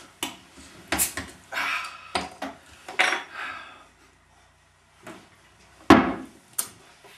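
Glass beer bottle being opened and handled, with a few sharp clicks and clinks, then a loud knock as the bottle is set down on the table just before six seconds in.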